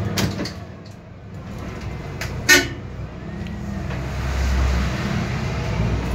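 A single short horn toot about two and a half seconds in, over the low running rumble of the Otokar Kent 290 LF city bus's engine heard from inside the cabin. The engine rumble grows louder in the second half as the bus pulls along.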